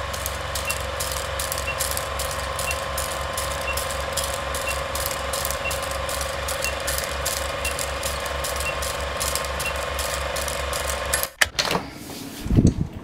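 Film projector sound effect: a steady mechanical clatter of fast, even clicks over a hum, with a faint blip about once a second, cutting off suddenly about eleven seconds in. A doorknob turning and a door opening follow, with a loud thump near the end.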